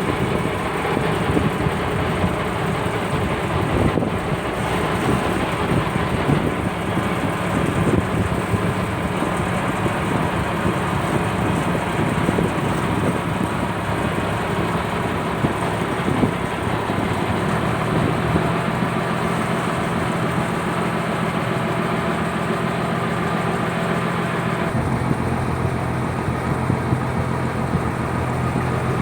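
Diesel engine of a purse-seine fishing boat running steadily. About 18 seconds in it settles into a steadier, even hum, and it shifts again near 25 seconds.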